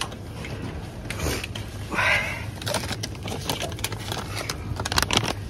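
Shop background with a steady low hum, a short high-pitched sound about two seconds in, then a run of clicks and crinkles as plastic pouches of baby cereal are handled on the shelf.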